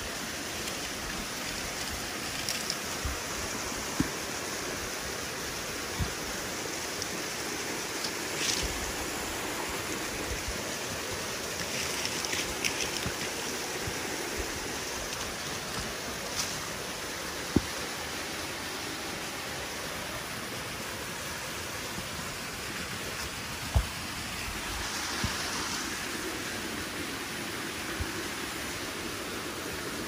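Steady rush of falling water from a mountain waterfall, with a few sharp taps and brief rustles over it.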